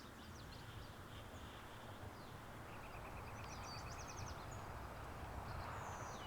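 Birds chirping over a steady outdoor background noise that slowly grows louder, with a brief trill about three seconds in.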